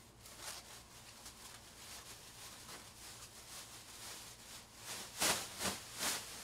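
Quiet room noise with faint rustling, then three short, louder rustling or brushing sounds about five to six seconds in.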